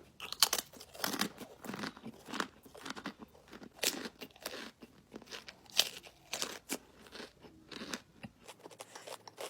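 A person chewing and crunching food close to the microphone: irregular crisp crunches, a few louder bites among them.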